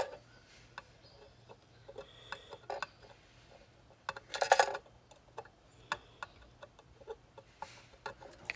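Small, scattered metallic ticks and clicks of hand soldering tools working on a circuit board, with a louder cluster of clinks about four and a half seconds in.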